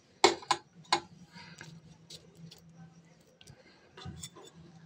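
Metal serving tongs clicking and tapping as chicken pieces are picked up and set on a paratha: three sharp clicks in the first second, then a few softer ticks and a small knock near the end.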